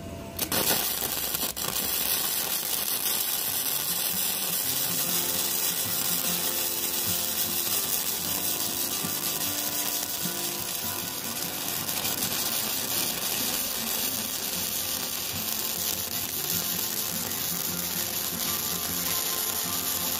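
Gasless flux-core MIG welding arc from a Kobe MIG-235K inverter welder, turned up to its maximum setting, laying a continuous bead on steel. It is a steady crackling and spattering that starts about half a second in and carries on without a break.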